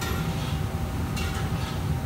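Steady low roar of a commercial kitchen's extraction hood and gas wok burners, with a few short hissy bursts of sizzling and scraping from the wok being worked, near the start and about a second in.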